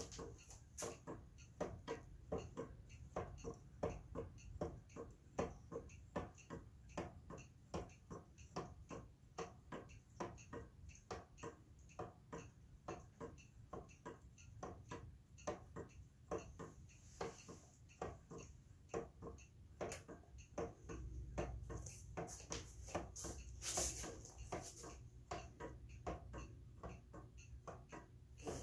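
Handmade wooden-gear wall clock running, its wooden escapement ticking in a steady, even rhythm. A louder scuffling noise joins the ticking near the end.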